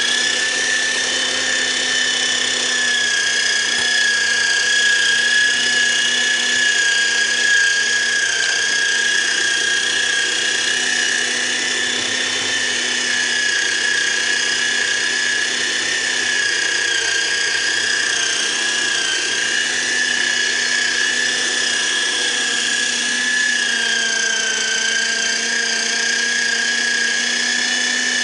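Electric meat grinder's motor running with a steady, loud whine as vegetables are pushed down its feed tube and minced; the pitch dips slightly about three-quarters of the way through, then steadies.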